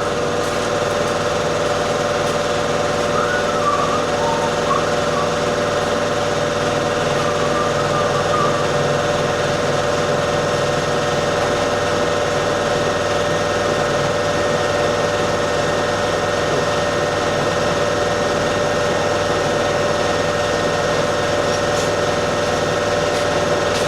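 An engine running steadily at idle, its even drone unchanged throughout.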